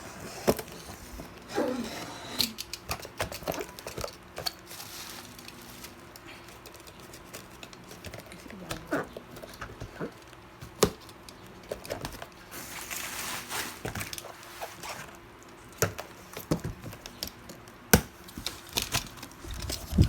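Unboxing sounds: packaging and a boxed welding machine being handled, giving scattered clicks and knocks, with a spell of crinkling packaging a little past the middle.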